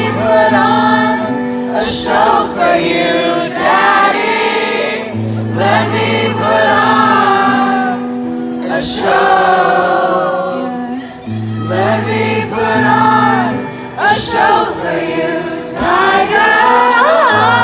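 Live concert music: a woman singing a slow song over electric guitar, with long held low notes underneath.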